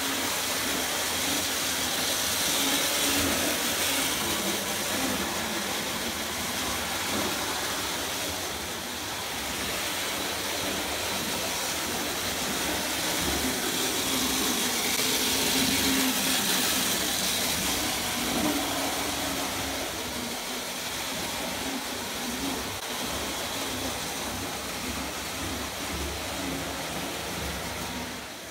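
Prewar Lionel O gauge toy train running on three-rail tinplate track: steady electric-motor whir and wheel rattle. It grows louder and softer as the train passes near and away, loudest about three seconds in and again about sixteen seconds in.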